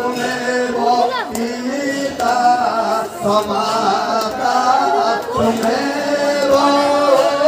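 A man singing a devotional chant into a microphone, in long held notes that bend in pitch.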